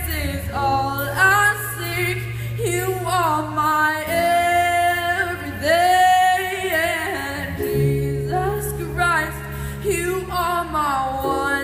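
A woman singing long, gliding held notes over sustained chords played on an electronic keyboard, the chords changing about every four seconds.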